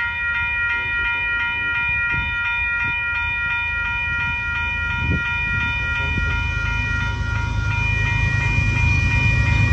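Railroad crossing warning bell ringing at an even quick rhythm, with the low rumble of an approaching train's diesel locomotives growing louder over the last few seconds.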